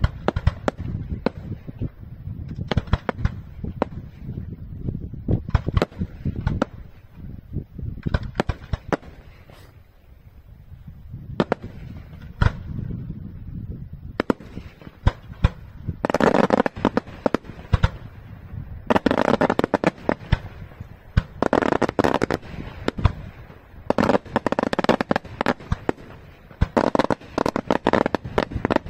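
Daylight aerial fireworks shells bursting in a rapid run of bangs over a low rumble. From about 16 seconds in they build into dense waves of crackling reports, each wave lasting a second or two.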